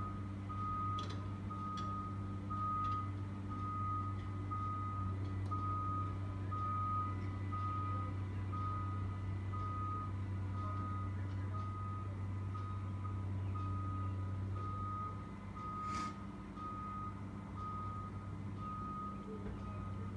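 A backup alarm beeping steadily about once a second over the steady diesel engine hum of a Cat hydraulic excavator handling pipe; the engine eases off about fifteen seconds in, and one sharp click sounds just after.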